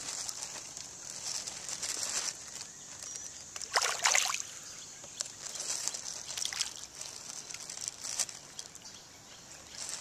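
Fish and turtles gulping and splashing lightly at the water surface as they feed on floating bread, with small scattered plops and one louder splash about four seconds in.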